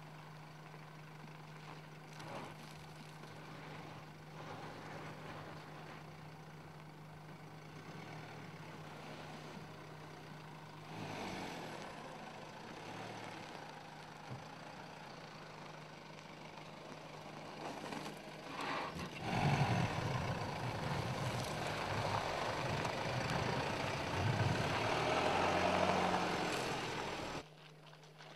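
Mercedes-Benz GLK 250 BlueTEC's four-cylinder turbodiesel running at low speed with a steady low hum as the SUV crawls over loose gravel, with tyre noise on the stones. The sound grows louder about two-thirds of the way in, then stops abruptly about a second before the end.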